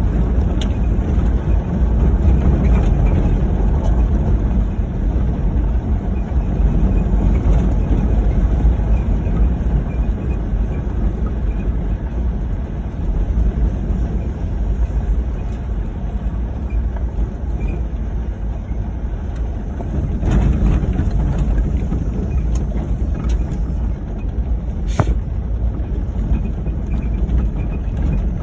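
Ford Crown Victoria driving off-road, a steady low rumble of engine and tyres on rough ground. A few clicks or knocks sound over it, with one sharp knock near the end.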